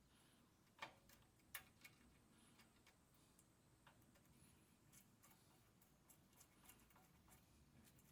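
Near silence with faint, scattered small clicks and ticks; the two sharpest come about a second in.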